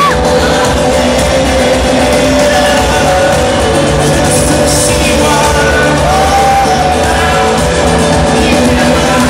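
Live rock band playing with a singer, loud over a stadium sound system.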